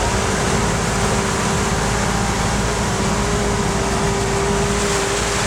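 Military Humvee's diesel V8 running steadily while driving, with a constant whine held at one pitch over the drone and road noise.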